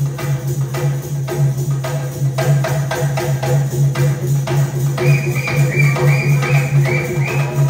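Live music for a Tharu fire dance: jingling percussion in a quick, even beat over a steady low hum. About five seconds in, a high tone joins in short repeated notes.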